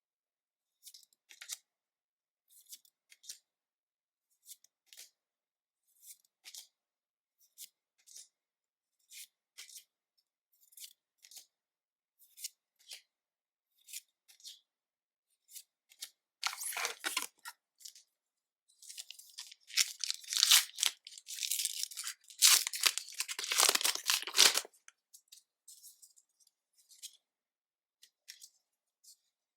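Pokémon card booster bundle packaging being opened by hand: light ticks and taps about once a second, then loud rips and crinkles of plastic packaging being torn open, the longest stretch lasting about five seconds past the middle.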